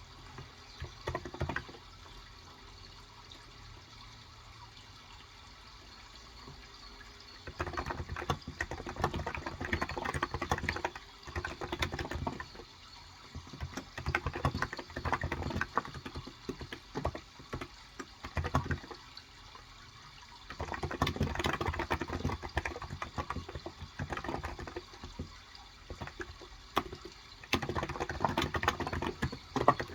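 Typing on a Cox Endeavor 35g tenkeyless keyboard with contactless electrostatic-capacitive switches: runs of rapid keystrokes, with a few pauses between them. A steady sound of running water continues underneath.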